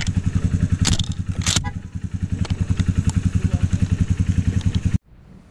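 A small vehicle engine running with a fast, even pulsing, with a couple of sharp clatters about a second in. It cuts off suddenly near the end.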